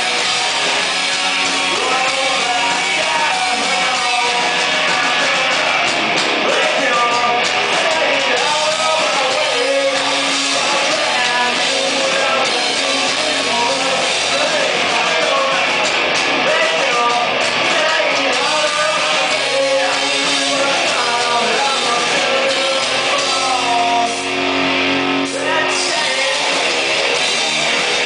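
A live rock band plays loudly: electric guitar and bass guitar, with a male voice singing over them.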